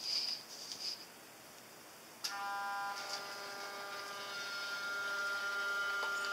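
Tank-tread robot's electric drive motors whining as it drives forward: a steady stack of tones that comes in with a click about two seconds in and drops to a lower pitch a second later. Short high buzzes in the first second.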